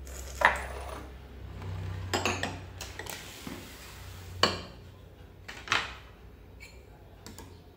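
Spoon and chopsticks clinking against ceramic bowls: about six sharp clinks a second or so apart, the loudest about half a second in, over a low steady hum.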